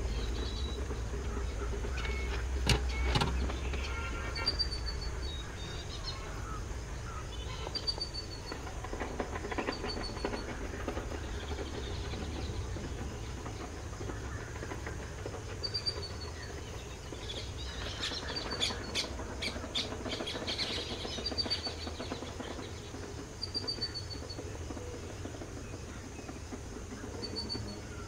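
Distant WDG4 diesel locomotive's low, steady rumble as it hauls a passenger train. A bird's short high chirp repeats every few seconds, and there are a few sharp clicks about three seconds in and again about two-thirds of the way through.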